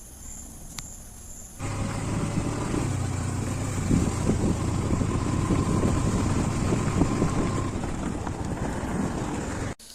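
Faint crickets, then about one and a half seconds in a Yamaha MT-15 motorcycle is heard riding along, its engine running steadily under a rush of road noise. The sound cuts off sharply near the end.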